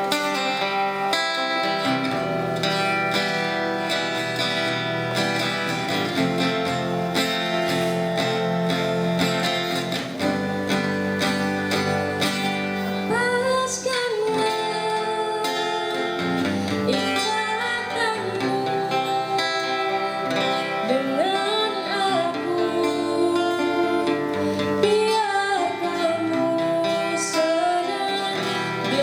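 Music: guitar and other plucked strings with a melody line that bends and slides in pitch, starting about halfway through.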